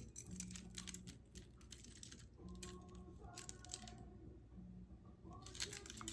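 Light clicks and clinks of small metal pocket tools, such as multi-tools and a handcuff key, being handled and sorted in a carry case. There is a flurry of clicks, then a scattered few, a pause, and another flurry near the end.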